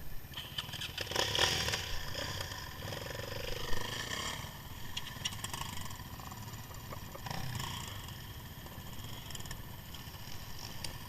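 Off-road quad bike (ATV) engines running close by, with a louder stretch about a second in and a smaller swell near the middle.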